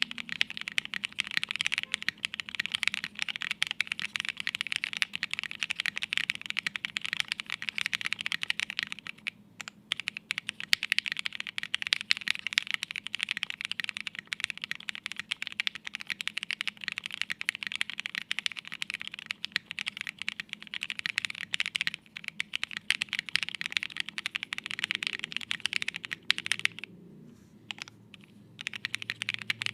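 Fast, continuous typing on a Studio Kestra Nue mechanical keyboard with no plate and no foam, fitted with lubed and filmed Alpaca linear switches and Hammerworks CRP keycaps. The typing pauses briefly about nine seconds in and again for about two seconds near the end.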